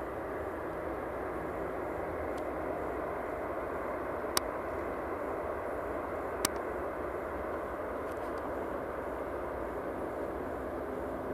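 Steady rushing noise of an Airbus A319-100 airliner heard from on board, with two sharp clicks about four and six and a half seconds in.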